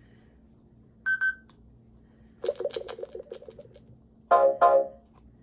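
Electronic lie detector game toy sounding its reading after an answer: a short high beep about a second in, a rapid run of electronic chirps for about a second, then two loud electronic tones near the end.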